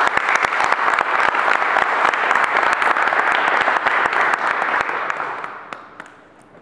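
Audience applauding: many dense hand claps that die away about five to six seconds in.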